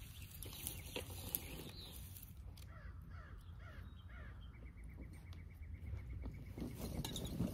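A crow cawing, a quick run of about five short caws, after a few footsteps crunching on dry leaves and gravel in the first second or so.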